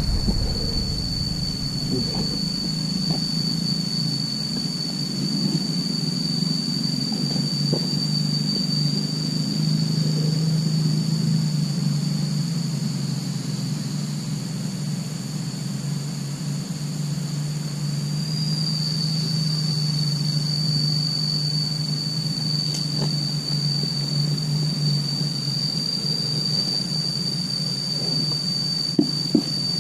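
A steady low hum with a high, even insect whine above it, which barely wavers.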